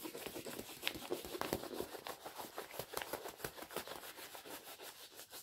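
Diamond painting canvas crinkling as it is rolled back up by hand: a faint, dense run of small crackles that tails off toward the end.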